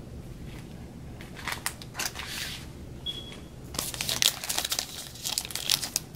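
Foil wrapper of a Panini Prestige basketball card pack crinkling and tearing as it is opened by hand, in irregular bursts that get louder and busier over the second half.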